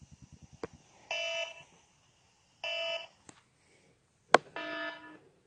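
Cartoon alarm buzzer sounding in short half-second blasts about one and a half seconds apart. A quick rattle of clicks comes at the start, and a sharp crack comes just before the third blast, which is loudest.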